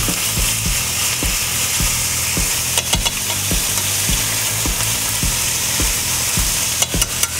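Pork and eggplant sizzling steadily in a frying pan as they are stir-fried together with chopsticks, with scattered low knocks and sharp clicks of the chopsticks against the pan around three seconds in and again near the end.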